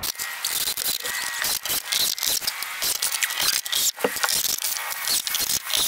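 Rapid, irregular scraping and clicking from work on pine boards being screwed down into place.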